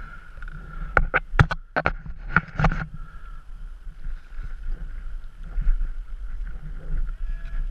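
A quick run of about seven sharp pops in the first three seconds, then wind noise on the microphone.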